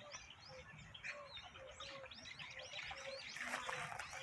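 Small songbirds chirping and twittering, faint, with a low note repeating about twice a second underneath. A rushing noise builds from about three seconds in.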